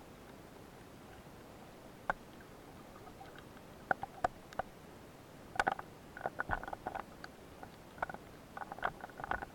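Underwater recording of irregular sharp clicks and short crackly knocks. They are sparse at first and come in quick clusters from about halfway through.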